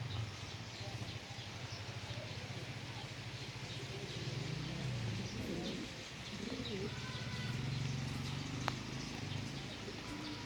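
Domestic pigeons cooing in repeated low, rolling phrases over a steady hiss of rain. A single sharp tick sounds late on.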